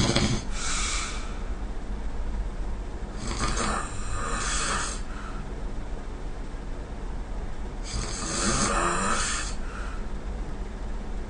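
A person snoring in sleep, a snore about every four and a half seconds: the tail of one at the start, then two full snores with quieter breathing between them.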